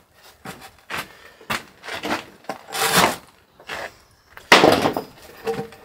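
A heavy sawn-timber beam being shoved and worked into its hole in the masonry wall: a string of irregular wooden scrapes and knocks, the loudest about four and a half seconds in.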